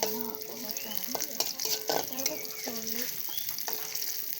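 Food sizzling in a frying pan while being stirred, with a few sharp knocks of the spatula against the pan.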